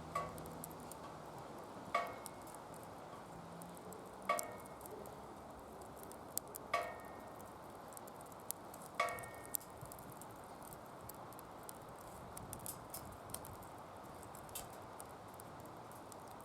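Wood fire burning in a DOD Mecha-moe Fire secondary-combustion fire pit, a steady hiss with small scattered crackles. Five sharp pops come about two seconds apart in the first ten seconds, each with a brief ringing tone.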